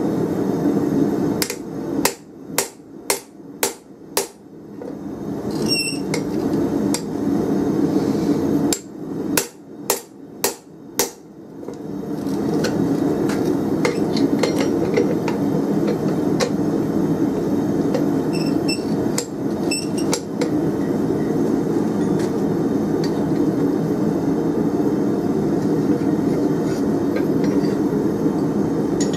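Hand hammer striking hot round steel held in a spring fuller on the anvil: two runs of blows, about two a second, in the first half, with a few ringing metal clinks. A steady even noise runs underneath and fills the second half.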